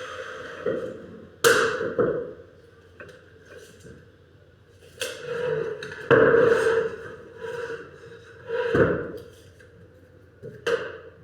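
Irregular hammer blows, about half a dozen sharp strikes with a short ringing tail after each and lighter taps in between, typical of carpentry work.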